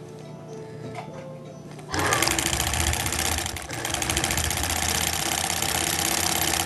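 Vintage Singer 306W sewing machine starting to stitch about two seconds in, then running fast with a rapid, even clatter of the needle mechanism and motor, easing off briefly about halfway through before picking up again.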